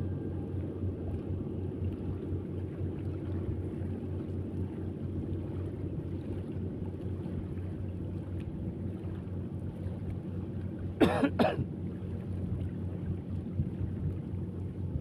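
A steady low hum runs throughout, and about eleven seconds in a person coughs twice in quick succession.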